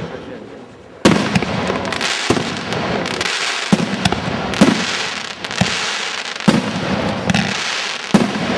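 Fireworks display: aerial shells and comets launching and bursting. About a second in, a loud bang starts a dense stretch of noise, with sharp bangs roughly once a second over it.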